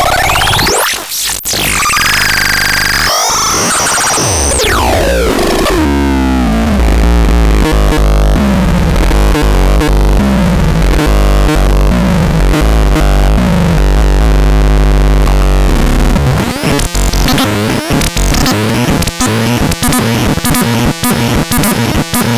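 Electronic synthesizer sounds: sweeping, gliding tones for the first few seconds, then a heavy droning bass under stepping notes, and from about 16 s a fast run of repeated sharp pulses.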